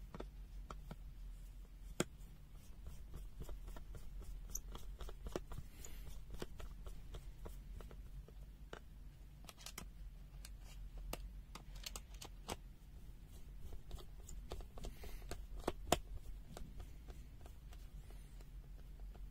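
Irregular small clicks and taps of a Chauvin Arnoux CA5215 multimeter's plastic case being handled as its battery cover is refitted, with two sharper clicks about 2 seconds in and near the end, over a steady low hum.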